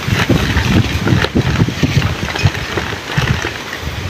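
Wind buffeting the microphone, with scattered crackling rustles as a burlap sack is handled.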